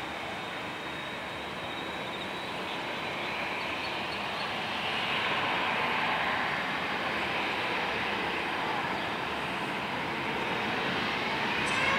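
Boeing 787-8's jet engines running as the airliner taxis and turns onto the runway, with a steady rushing noise and a thin high whine. Near the end, a rising whine sets in as the engines spool up for takeoff.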